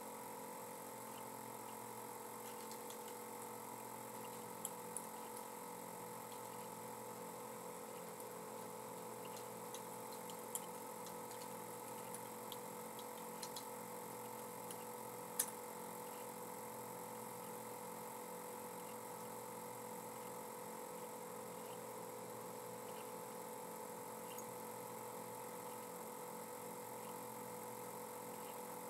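Faint steady hum with a few sharp computer keyboard and mouse clicks scattered through the first half.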